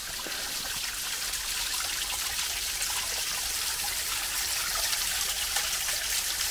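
Small creek waterfall splashing, a steady hiss of falling water.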